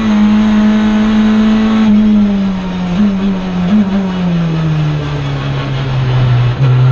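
Engine of a SAIC Volkswagen Lamando GTS 2.0T touring car, a 2.0-litre turbocharged four-cylinder, heard from inside the cockpit. It holds a steady high note for about two seconds, then the revs fall slowly over the next few seconds, with two brief jumps in pitch about midway.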